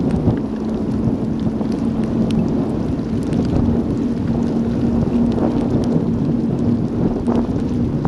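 Wind buffeting a bike-mounted action camera's microphone while riding through a rainstorm, with scattered raindrops ticking on the camera and a steady low hum that comes in shortly after the start.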